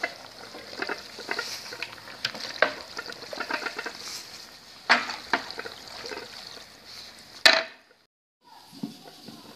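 Spatula stirring diced raw pork fat in a large pot at the start of rendering it into cracklings, the stirring keeping the fat from catching on the bottom. Irregular scrapes and knocks against the pot over a faint steady hiss, with one sharp knock about seven and a half seconds in and a short dropout just after.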